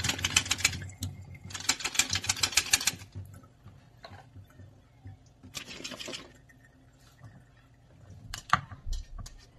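Metal colander of drained red kaong (sugar palm fruit) shaken in a stainless steel sink, rattling rapidly in two spells of a second or so. A shorter rattle follows, then a sharp knock near the end as the colander is tipped over the mixing bowl.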